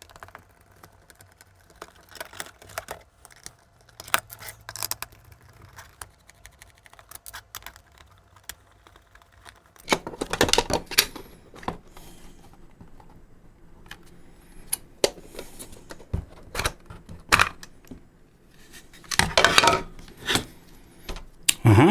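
Small clicks and scrapes of hands and a tiny screwdriver working on a Fluke 15B+ multimeter's plastic case as its remaining screws are undone, with two louder stretches of plastic scraping and rustling about ten and nineteen seconds in.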